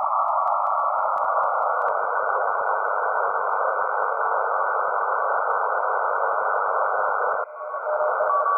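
Shortwave (HF) receiver audio filled with a dense hiss of broadband interference radiated by neighbours' cheap LED lamps, with a thin steady tone keying on and off in dashes inside the noise. About seven and a half seconds in, the hiss dips briefly and changes character as the X-Phase noise canceller is switched in, and a second, lower dashed tone comes through.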